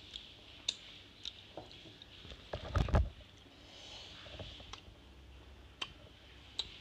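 Close-up eating sounds: chewing with short wet lip smacks, a louder clatter about two and a half to three seconds in, and fingers squishing rice and curry on a steel plate.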